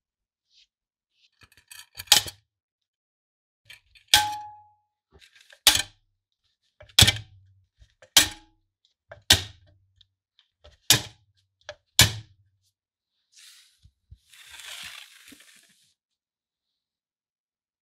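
Hand pop-rivet tool being squeezed against the lantern's steel body, setting a rivet. It makes about eight sharp metallic clacks, one every second or so, and one of them rings briefly. A short rustle follows near the end.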